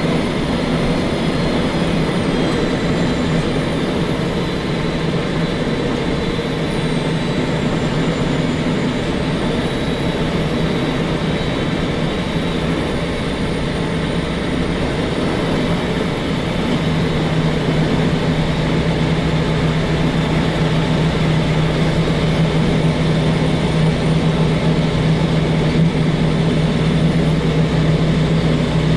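Long-haul truck's diesel engine running on the road: a steady drone that grows a little louder about halfway through.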